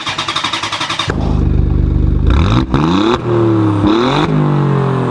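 A motorcycle engine accelerating: a second of fast pulsing, then a pitch that climbs and drops back sharply several times, like revving up through the gears.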